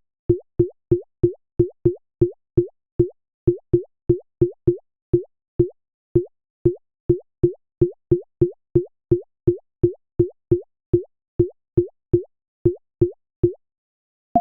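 Synthesized water-drop plops from a Bitwig Poly Grid patch, repeating about two to three times a second with a few short gaps. Each drop is a short tone that quickly rises in pitch.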